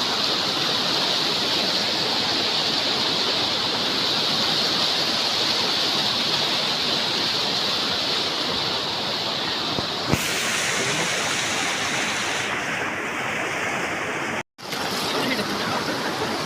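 Steady rush of a waterfall, water pouring and splashing over rocks. The sound shifts abruptly about ten seconds in and drops out for a moment near the end, where the recording is cut.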